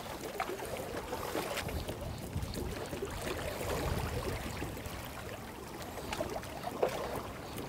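Steady water noise of small waves lapping at the shoreline, with a few faint clicks.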